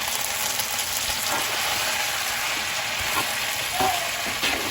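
Food sizzling steadily in hot oil in a pot while being stirred, with a few faint ticks and scrapes of the spoon.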